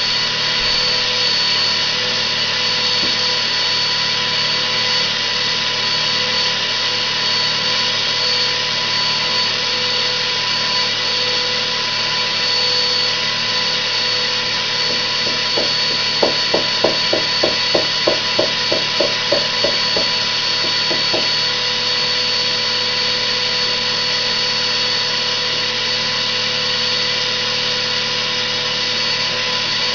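Vacuum cleaner running steadily with a high motor whine as it sucks loose glitter off a painted shirt. About halfway through comes a run of a dozen quick, regular pulses, about two or three a second, for some five seconds.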